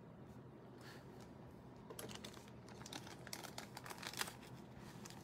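Light crinkling and clicking of a trading card being handled and slid into a thin clear plastic penny sleeve. A flurry of small crackles starts about two seconds in, the sharpest just past four seconds.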